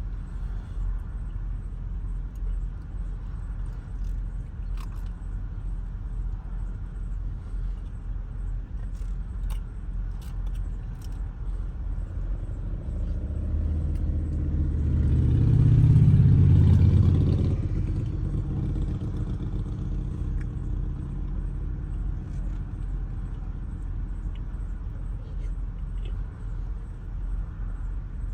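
Ford Transit Connect engine idling steadily with a low rumble. Around the middle, another vehicle's rumble swells up loudly for a few seconds and fades away as it passes close by.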